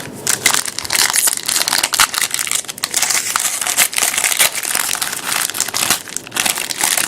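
Plastic-foil trading-card pack wrapper crinkling and crackling as it is handled and opened, a dense run of crackles.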